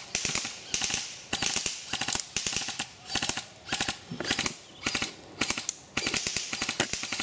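Airsoft guns firing on full auto: short, rapid bursts of sharp clicking shots, about ten bursts one after another, each lasting well under a second.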